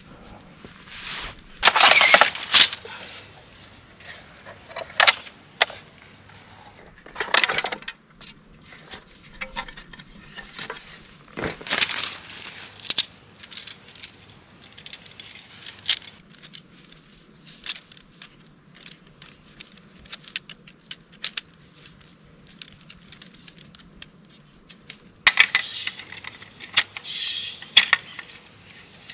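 Objects being handled: scattered clicks and light metallic clinks throughout, with several louder bursts of rustling and clatter, the biggest about two seconds in and again near the end.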